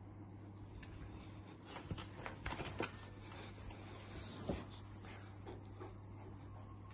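Golden retriever puppy tugging at a plush toy on a wooden floor: scattered scuffs and clicks, the sharpest about four and a half seconds in, over a steady low hum.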